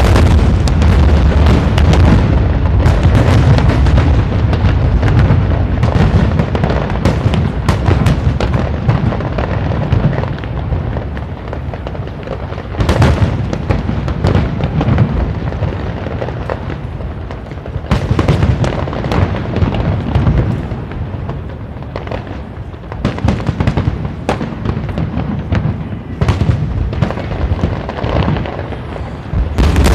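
Aerial fireworks display: shells bursting one after another in a dense, unbroken barrage, swelling into louder volleys every few seconds.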